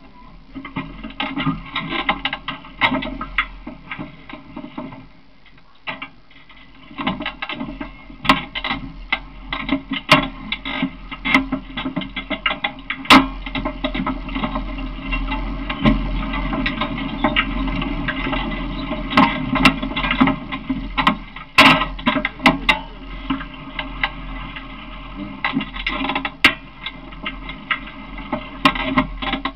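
Rattling and clattering of a small open ride-on vehicle in motion, heard from a camera mounted on it: many sharp knocks and clicks over a steady low hum, easing off briefly about five seconds in.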